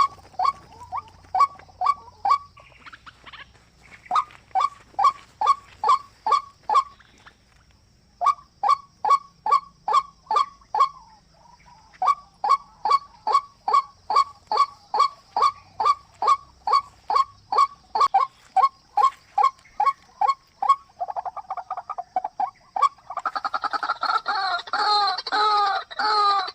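A bird's call: a short, falling note repeated about two or three times a second in long runs with brief pauses, turning into a rapid trill and then warbling notes near the end.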